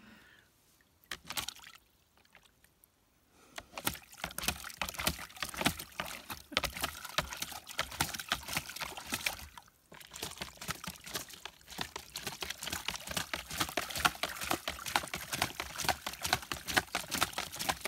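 Irish red setter splashing in a plastic tub of water, pawing and dunking its head, in quick, irregular splashes. A short splash comes about a second in, then steady splashing from about three and a half seconds on, with a brief pause near the middle.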